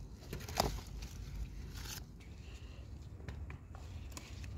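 Scissors snipping through eggplant stems, a few short sharp cuts with the loudest about half a second in, among rustling leaves.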